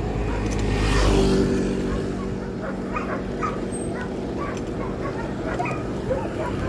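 Wind and road rumble on the microphone of a moving bicycle. A motor vehicle passes about a second in, its engine swelling and then fading. A dog barks repeatedly in the background through the second half.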